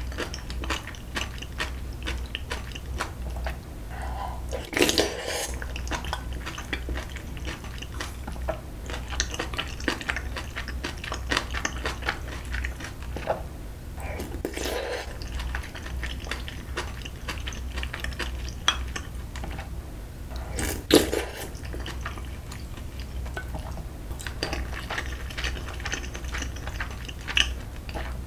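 Close-miked chewing of spoonfuls of rice soaked in leftover ramen broth, with a metal spoon clinking against the dishes now and then.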